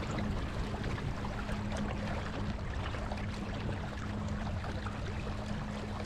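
Water lapping and splashing in small irregular ticks against a kayak hull, over a steady low hum from an electric trolling motor.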